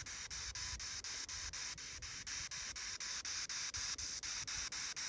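Spirit box (ghost box radio) sweeping through stations: a steady hiss of radio static chopped into short, even bursts about four times a second.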